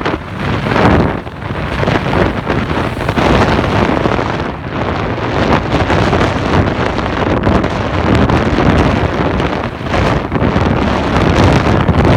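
Strong gusty wind buffeting the microphone, a loud rushing noise that swells and eases every second or two.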